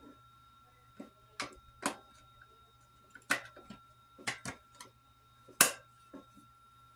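AA batteries being pressed into a trail camera's plastic battery compartment: a string of irregular sharp clicks and taps, the sharpest a little past halfway.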